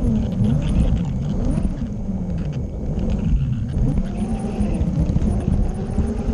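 Garden-scale model train's electric motor and gears whining as it runs, the whine gliding up and down in pitch as the speed changes, over a steady rumble of the wheels on the track.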